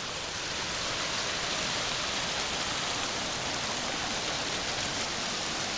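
Small mountain stream rushing over rocks close by: a steady, even rush of water that swells slightly about a second in.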